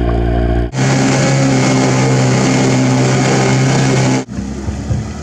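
Outboard motor driving the boat, heard in three cuts: first as a deep steady hum beside the spinning propeller, then, from about a second in, as a steady engine drone over loud churning wake water, and near the end as a quieter, lower engine sound.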